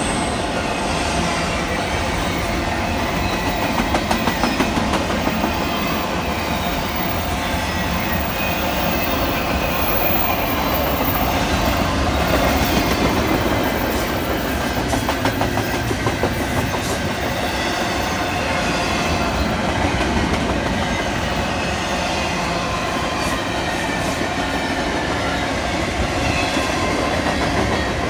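Double-stack intermodal train's container flatcars rolling past: a steady rumble of steel wheels on the rails with scattered clicks over rail joints.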